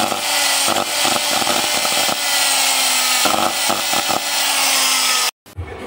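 A 125 mm, 950 W electric angle grinder runs freely, a steady motor whine that sags slightly in pitch, with irregular crackling. Blue arcing flashes through the motor vents, the sign of a faulty motor. It cuts off suddenly near the end.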